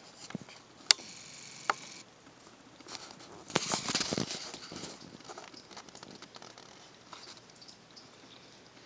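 Light clicking and pattering on a tiled floor as cats and a live crab move about: two sharp clicks in the first two seconds, then a denser flurry of clicks and scrapes about three and a half to four and a half seconds in, and fainter scattered ticks after that.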